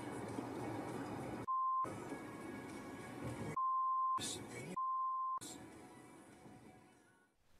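Three censor bleeps, each a steady single-pitched beep that blanks out all other sound: a short one about a second and a half in, then two longer ones close together around four and five seconds in.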